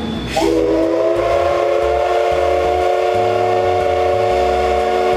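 The steam whistle of the C58 363 steam locomotive sounds one long, steady blast of several tones at once, starting with a short hiss of steam about half a second in. It is the departure whistle as the train pulls out of the station.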